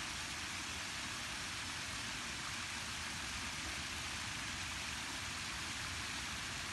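Steady, even hiss with no distinct sounds standing out from it.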